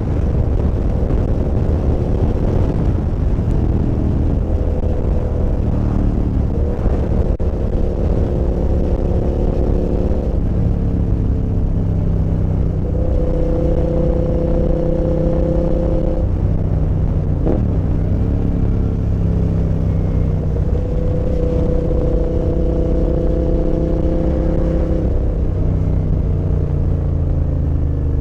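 Suzuki SV650's 645 cc V-twin with a full aftermarket exhaust, running under way and heard from the pillion seat. The engine holds a steady pitch for stretches, shifts pitch a few times with throttle and gear changes, and dips briefly about two-thirds of the way through.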